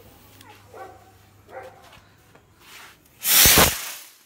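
Hand-held skyrocket launching about three seconds in with a loud, short rushing hiss that fades within about a second.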